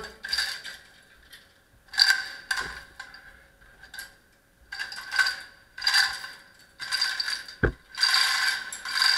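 Metal chains and the ratcheting mechanism of a Lindauer Schere, a scissor frame for lowering a sewer camera, rattling and clicking in short bursts, most of them about a second apart, as it is worked by hand. A single dull knock comes about three-quarters of the way through.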